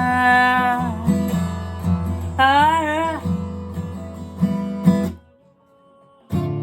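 Acoustic guitar strummed under a man's singing voice, which holds a long note and then a wavering phrase. The music drops out for about a second near the end, then the guitar comes back in.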